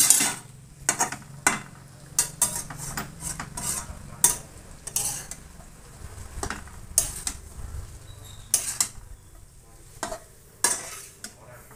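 A metal spatula scraping and clinking against a steel kadai as noodles are stir-fried, in irregular strokes, with the food sizzling in the pan.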